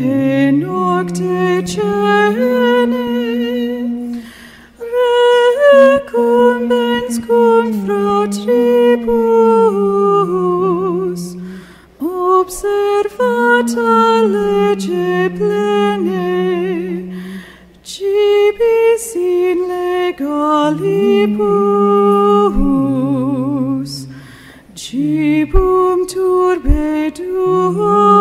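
Unaccompanied voices singing a slow hymn as one melody line, in phrases of about six seconds with a short breath between each.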